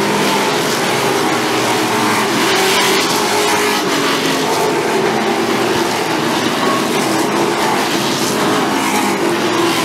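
V8 race car engines running loud and steady at high revs, several engine notes overlapping.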